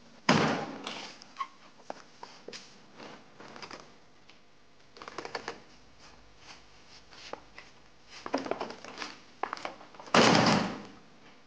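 A door pulled open with a loud knock, then scattered footsteps and small knocks, and a louder bang about ten seconds in.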